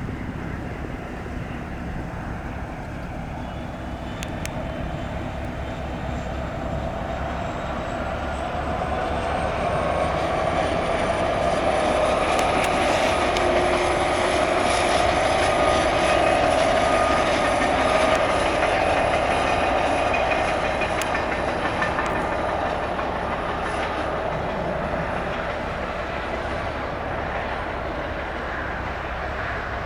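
Union Pacific SD70ACe diesel locomotive and its two cars rolling past, the sound building to a peak about halfway through and then fading. Wheel clicks over the rail joints and a thin high whine are heard through the loudest part.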